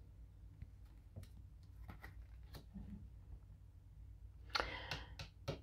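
Quiet room tone with a few faint scattered clicks, and a short rustle about four and a half seconds in.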